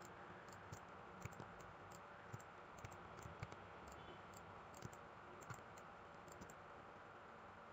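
Faint computer mouse clicks, a dozen or so at irregular intervals, as objects are picked one at a time in 3D modelling software; otherwise near silence.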